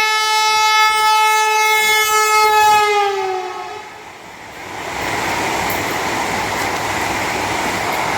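Vande Bharat Express train horn sounding one long, loud blast that drops in pitch as it fades out about three and a half seconds in. It is followed by the steady rushing noise of the train running past.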